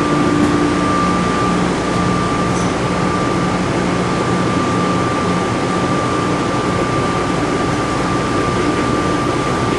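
Steady mechanical hum inside an airport people-mover train car, with a constant high whine running through it.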